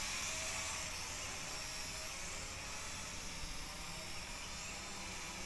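Small S11 quadcopter drone in flight, its propellers giving a steady buzz with a faint high whine.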